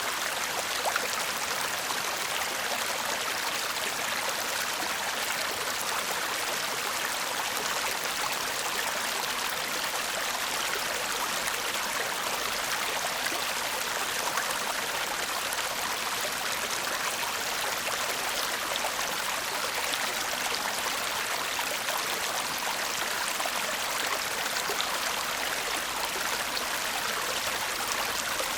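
A shallow stream babbling steadily, water splashing and gurgling over stones in an even, unbroken rush.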